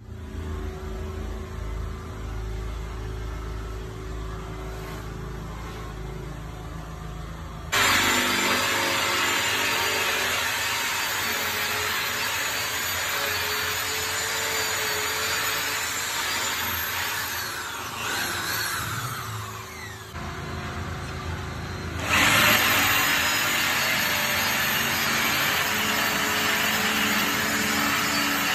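Cordless drill boring hinge-cup holes into a laminated wardrobe door panel, running steadily and loud; it eases off and slows for a few seconds in the middle, then picks up again. A low rumble comes before the drill starts, about eight seconds in.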